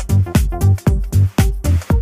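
Background electronic dance music with a steady, fast bass beat, about four beats a second.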